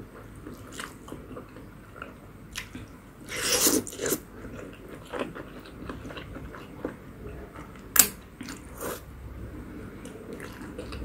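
Close-up eating sounds of instant ramen noodles: a slurp about three and a half seconds in, then chewing with soft wet mouth clicks and a sharp click near eight seconds.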